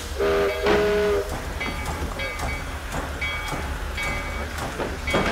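A train: its horn sounds a chord of several notes for about a second near the start, then the wheels clack over rail joints at a regular pace over a steady low rumble.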